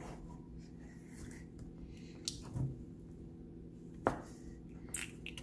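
Flarp noise putty being pressed down into its small plastic tub by hand: a few faint clicks and taps and one brief soft low squelch about two and a half seconds in, without a full fart-like noise.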